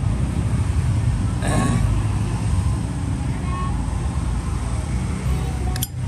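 Steady low rumble of road traffic, with a brief rustle about a second and a half in and a single sharp click near the end.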